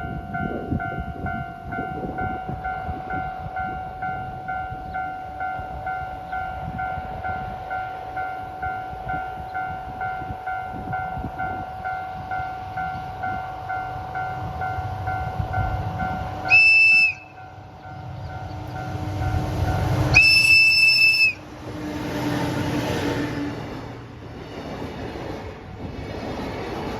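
Level-crossing warning bell ringing in even pulses about twice a second over the low rumble of a JR Freight DF200 'Red Bear' diesel locomotive moving slowly through the crossing. About two-thirds in the locomotive sounds its horn in a short blast, then a longer one a few seconds later, and the bell stops around the second blast.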